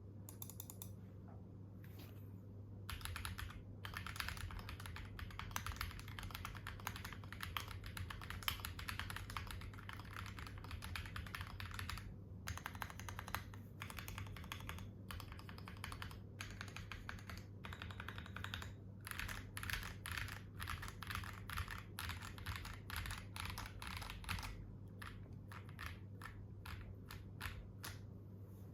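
Akko ACR Pro Alice Plus gasket-mount mechanical keyboard, with a polycarbonate plate, no case foam, Akko CS Crystal switches and ASA keycaps, being typed on quickly in a steady run of keystrokes. Near the end the strokes slow into separate presses. A low steady hum sits under the typing.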